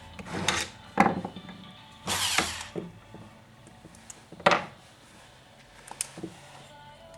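Workshop handling noises: a series of irregular knocks, clatters and short scrapes as tools and chainsaw parts are picked up and set down.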